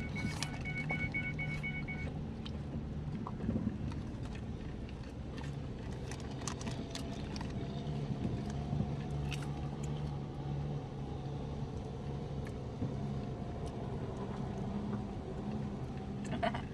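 Vehicle driving on a rough dirt road: a steady low engine hum with scattered knocks and rattles.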